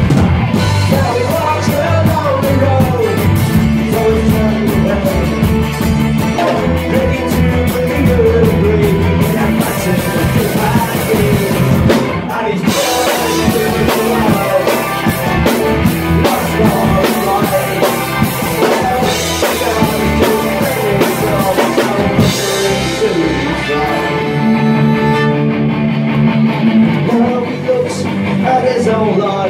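Folk-punk band playing live, with fiddle, acoustic guitar and drum kit. The drums' cymbal wash drops back about three-quarters of the way through.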